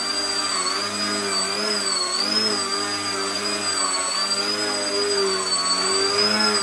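Electric motor and propeller of a small foam 3D RC airplane hovering in a prop-hang: a steady whine whose pitch rises and falls slightly with constant small throttle corrections.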